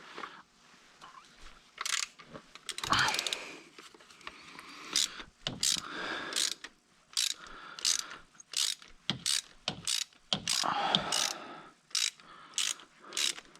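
Hand ratchet wrench clicking in repeated short strokes, roughly one stroke every second or less, backing out a threaded brake spring return pin. The pin is held by thread-locking compound, so it has to be ratcheted all the way out and won't spin off freely.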